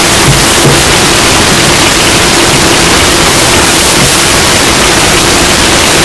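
Loud, steady static-like hiss spread evenly from low to high pitch, with a faint steady hum underneath.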